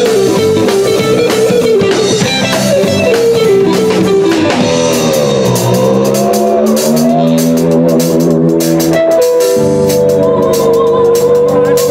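Live rock'n'roll band playing: electric guitar leads with held, bending notes over a drum kit, one note dipping down and back up in pitch about halfway through.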